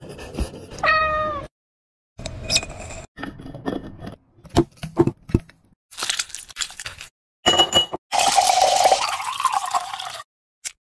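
A short cat meow, falling in pitch, about a second in. Then drink-making sounds follow: a row of sharp knocks as a muddler crushes strawberries in a glass, a brief glassy ring, and liquid poured over ice near the end.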